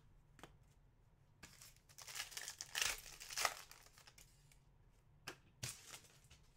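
Foil wrapper of a trading-card pack crinkling as it is handled and opened, louder for a second or two in the middle, followed by two light clicks near the end.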